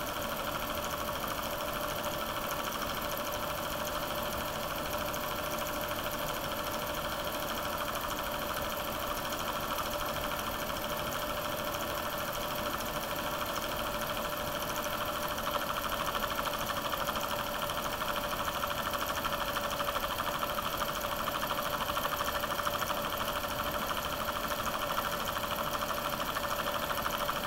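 9.5mm film projector running: a steady mechanical whir with a fast, even clatter from the film advance, getting slightly louder after about halfway.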